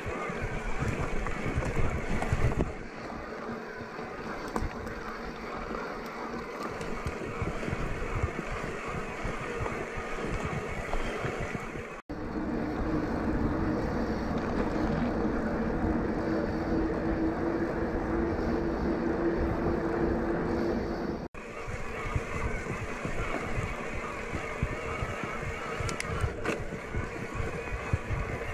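Ride noise from an electric mountain bike on a dirt track: wind buffeting the action camera's microphone over the rumble of knobbly tyres rolling on dirt and gravel. A steady hum joins in the middle stretch, and the sound cuts off abruptly twice.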